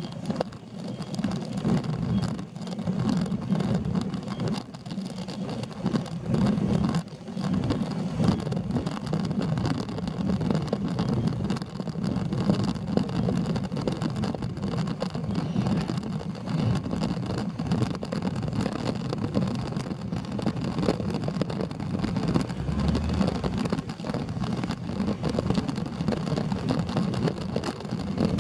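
Steady low rumble of wind and road noise on a camera riding a road bike up a slow climb, rising and falling in loudness.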